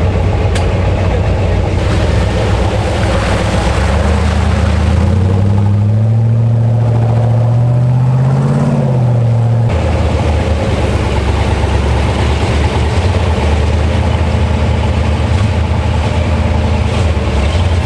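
Off-road vehicle engine running steadily, then revving with a rising pitch from about five seconds in. It drops back just before an abrupt change near ten seconds, after which it runs on steadily.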